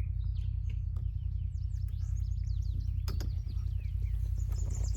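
Small birds chirping and singing, many quick sweeping chirps, over a steady low rumble. A couple of sharp clicks a little over halfway through.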